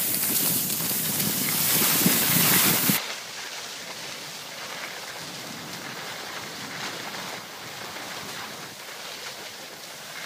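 Skis sliding over snow with wind rushing on the microphone, filmed while skiing. A loud, bright hiss for about the first three seconds, then it drops suddenly to a softer, steady rush.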